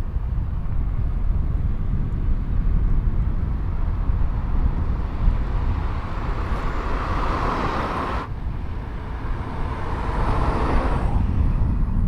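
Wind rumbling on the microphone while riding down a city street, with road noise. A rushing noise swells twice, the first time cutting off suddenly about eight seconds in.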